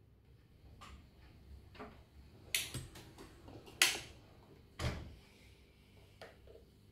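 Sharp plastic clicks and knocks of a power cable's plug being handled and pushed into the socket of a multi-port charging station, about six in all. The loudest click comes a little before four seconds in.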